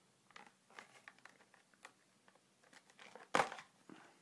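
A small retail package being handled and opened by hand: scattered soft crinkles and clicks, with one louder crinkle a little over three seconds in.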